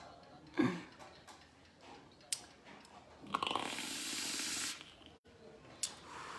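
A man drawing on a pod vape: a steady airy hiss lasting about a second and a half, then a softer breathy hiss near the end as he blows out the vapour. Two short clicks come before and after the draw.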